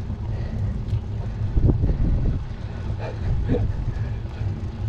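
Wind buffeting the microphone of a camera riding on a moving road bike: a steady low rumble, with a few short, fainter sounds around the middle.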